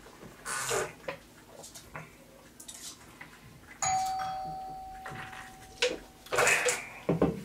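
A doorbell rings once: a single clear chime tone that starts suddenly about four seconds in and fades over two to three seconds. Near the end there is a short noisy burst, then a couple of dull knocks.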